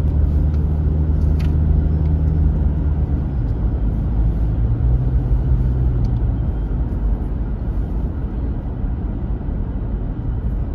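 Car cabin noise while driving: a steady low engine hum and tyre rumble on the road. The engine's pitch shifts a few seconds in.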